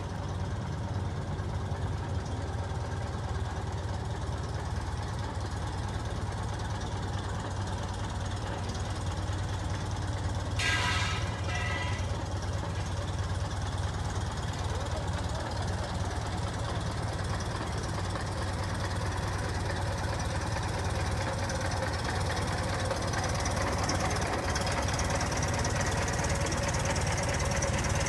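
An antique car engine idling steadily. A brief higher-pitched sound comes about eleven seconds in.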